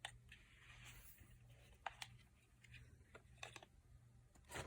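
Near silence, with a few faint clicks and light rustles of cosmetic packaging being handled, over a low steady hum.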